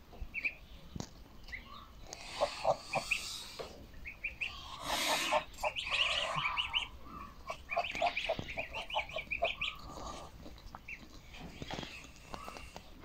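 Domestic goslings peeping in quick runs of short, high chirps, many birds at once, while the flock feeds; short clicks sound among them and a brief rush of noise comes about five seconds in.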